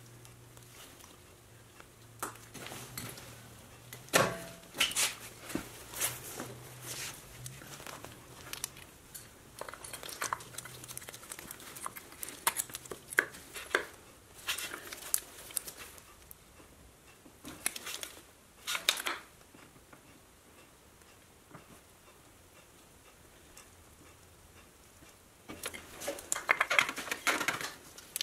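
Scattered metallic clicks, clinks and knocks of new brake pads, their wear sensor and the front brake caliper of a Mercedes W204 being handled and fitted, with a burst of rattling knocks near the end.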